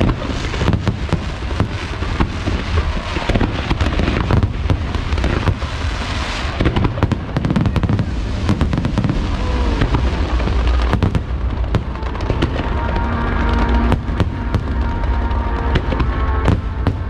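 Fireworks display in full barrage: many aerial shells banging and crackling in quick succession over a deep rumble, with show music playing underneath. About two-thirds of the way through the bursts thin out to separate bangs and the music comes forward.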